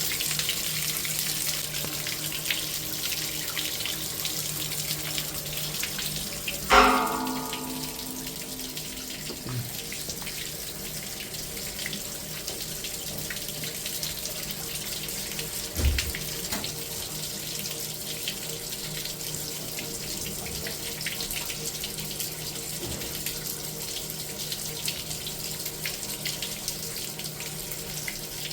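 Steady hiss of water running from a leak inside a boiler. About seven seconds in, a single loud metallic clang rings out, and a duller thump follows later.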